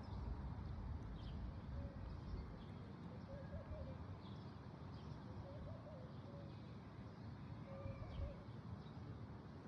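Faint short animal calls, each a brief warble, repeating every second or so over a low rumble, with faint high chirps between them.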